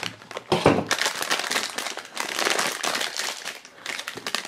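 Black foil blind bag crinkling in the hands as it is drawn out of its cardboard box and handled, in an irregular run of crackly rustles that is loudest about half a second in.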